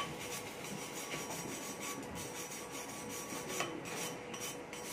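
A hand wire brush is scrubbed back and forth in quick strokes over a welded steel pipe joint, cleaning the weld.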